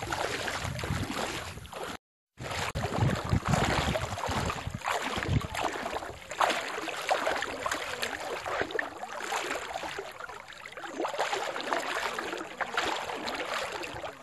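Wind gusting over a phone's microphone beside open water, with a rushing water noise; the sound cuts out completely for a moment about two seconds in.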